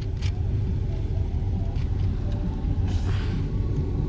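Steady low rumble of a car heard from inside its cabin, with a brief soft hiss about three seconds in.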